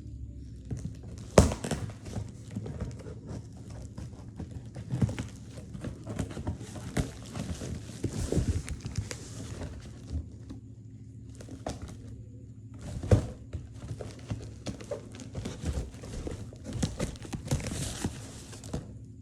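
Packaging being handled and opened: irregular rustling and crinkling with scattered clicks, and two sharper knocks, one about a second and a half in and one about thirteen seconds in.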